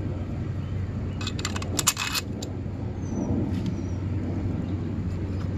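Small metal hardware clinking and rattling for about a second, starting about a second in, with a few lighter ticks later, over a steady low hum.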